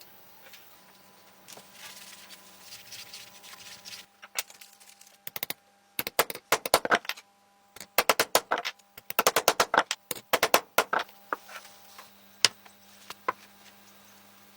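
Quick runs of sharp clicks and taps, hard against hard, coming in several bursts with short pauses between them.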